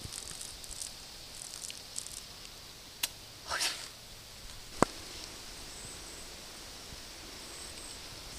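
Quiet outdoor campsite background with a faint high hiss, broken by a brief rustle or scrape about halfway through and two sharp clicks, the louder one near the middle.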